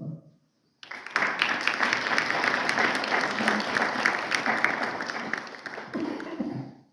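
Audience applauding: a dense patter of many hands clapping that starts about a second in, holds steady for about six seconds, then dies away near the end.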